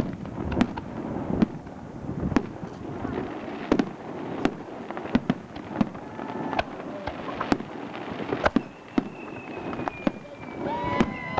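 Fireworks set off on the snow, bursting in an irregular series of sharp bangs and crackles, several a second at times.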